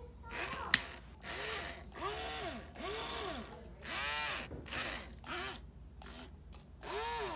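Small geared motors of a toy robot arm whirring in a series of short bursts, each whine rising and then falling in pitch as a motor starts and stops, with one sharp click a little under a second in.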